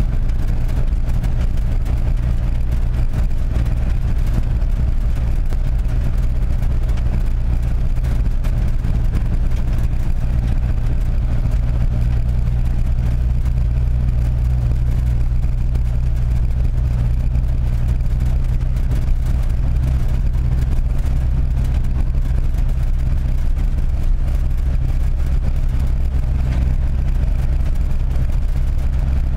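Vehicle engine running steadily under way, a constant low drone with road noise.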